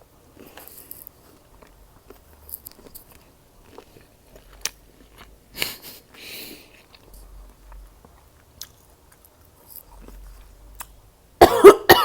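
Close-miked eating of shrimp and sausage: soft wet chewing, lip smacks and small clicks. Near the end comes a loud burst of several coughs.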